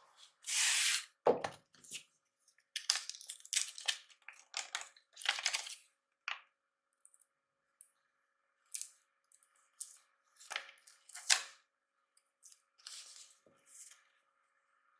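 Hands crinkling a clear plastic zip bag and then rustling a folded paper leaflet as it is opened, in irregular bursts, with a single knock on the desk just after a second in.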